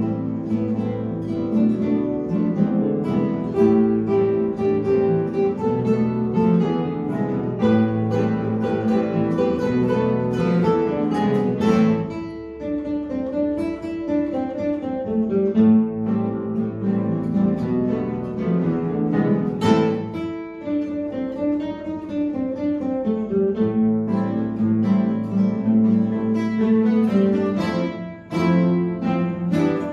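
An ensemble of nylon-string classical guitars playing a bossa nova piece together, plucked notes and chords over a steady groove.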